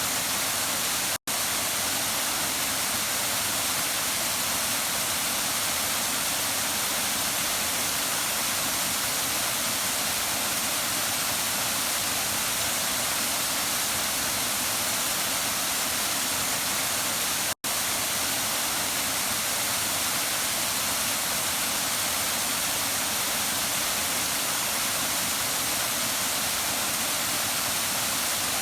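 Waterfall rushing in a steady, even hiss-like roar, heavier in the high end than the low. The sound cuts out for an instant twice, about a second in and again about seventeen seconds later.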